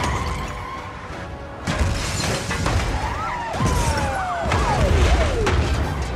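Action-film soundtrack of a car pile-up under music: a sudden loud crash just under two seconds in, followed by metal impacts, booms and several screeches that slide up and down in pitch.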